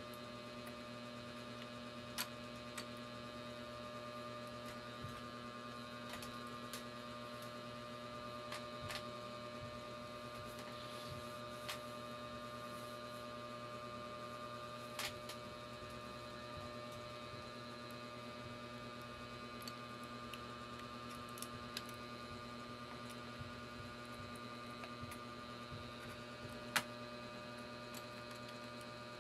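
Steady electrical mains hum. A few sharp clicks and taps are scattered through it, the loudest near the end.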